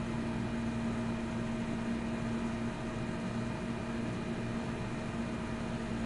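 Steady background hum with hiss: a constant low drone of room and machine noise, with no distinct events.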